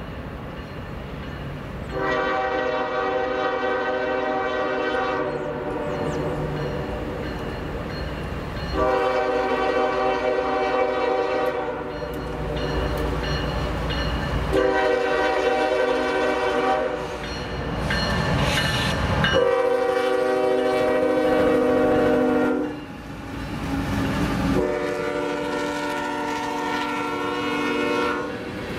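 Diesel locomotive air horn sounding five long blasts, each about three seconds, with the rumble of the train between them.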